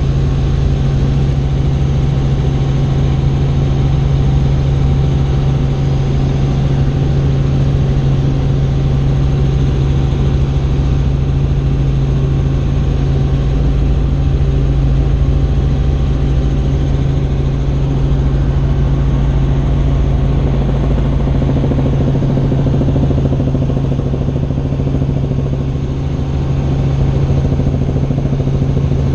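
Helicopter in flight: a steady, loud drone of engine and rotors with a strong deep hum.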